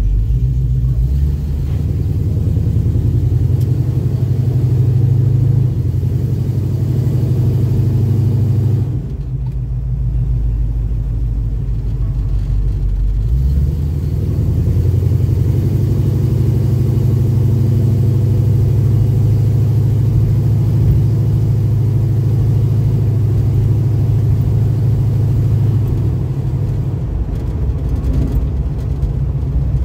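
1969 Pontiac Firebird's engine heard from inside the car, pulling away and climbing in pitch. It eases off briefly about nine seconds in, then pulls again and settles into a steady cruise.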